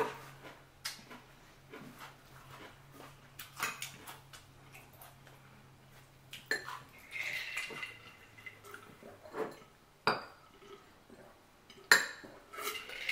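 Eating at a table: irregular clicks, clinks and knocks of utensils and seafood shells against dishes, the sharpest knock about ten seconds in.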